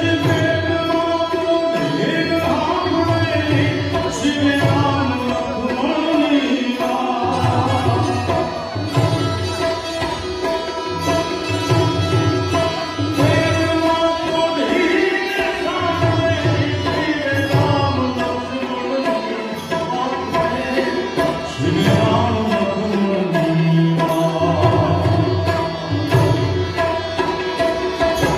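A male voice singing a Gujarati folk song (dayro) over a harmonium's sustained chords, with a steady hand-drum beat underneath.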